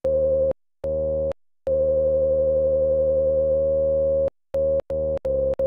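Behringer 2600 analogue synthesizer playing the same single note with the filter resonance turned up, giving a strong ringing peak over the oscillator's buzz. Three notes are held, the third for about two and a half seconds, then the note is tapped quickly several times near the end.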